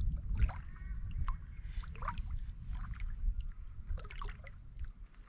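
Kayak paddle strokes: water trickling and dripping off the paddle blades in scattered small splashes, over a low steady rumble.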